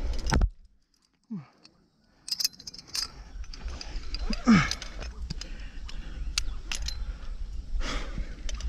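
Climbing hardware (carabiners and quickdraws on a harness) jangling and clicking in scattered metallic clinks, over a low rumble on the microphone that drops out for about two seconds near the start. A short falling vocal sound comes about halfway through.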